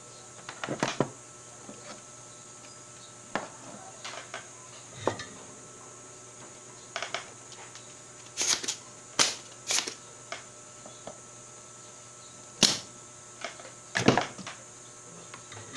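Scattered sharp clicks and knocks as a DVD player's power-supply board and probes are handled on a workbench, with a cluster of the loudest taps about eight to ten seconds in.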